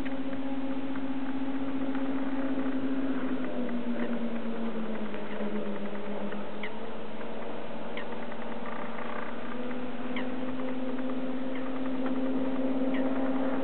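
Racing powerboat engine running at a steady high note. Its pitch sags about four seconds in as the boat takes the bend, then climbs back to full pitch. Faint short high chirps are scattered over it.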